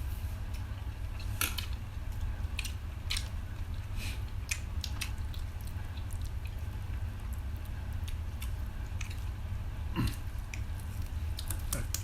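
People chewing and eating a meal, with wet mouth sounds and many short sharp clicks scattered throughout, one louder click about ten seconds in, over a steady low hum.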